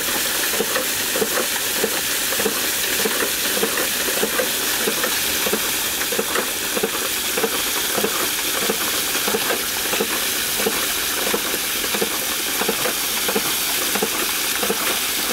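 Steady hissing spray of water as bicycle tyres plough through a flooded, muddy track, throwing up muddy water.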